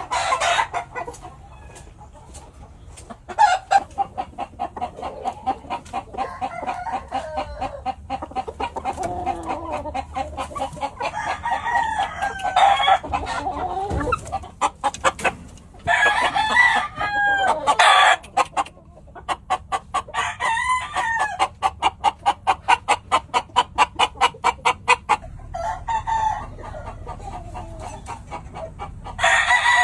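Gamefowl roosters crowing several times, over long runs of rapid, repeated clucking.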